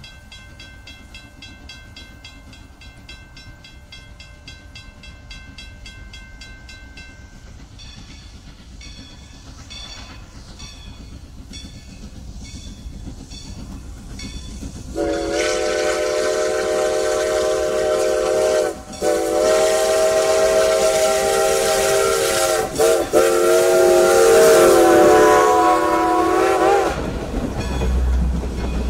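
Steam locomotive approaching: a bell rings with a quick, even beat. About halfway through, the steam whistle sounds one long, loud chime blast with a short break. Near the end the passenger coaches roll past with a low rumble and the clickety-clack of wheels over rail joints.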